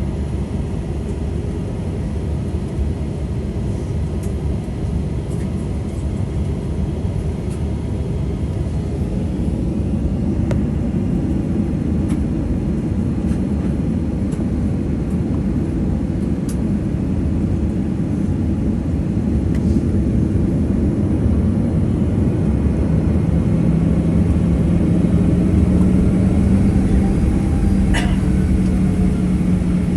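Cabin noise of a Boeing 737-800 moving on the ground: a steady low rumble with its CFM56-7B engines running. About two-thirds of the way through, a steady low hum rises out of the rumble and the sound grows slightly louder.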